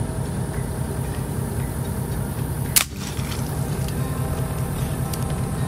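A single sharp crack from a suppressed .25-calibre AirForce air rifle being fired, about three seconds in, over a steady low rumble.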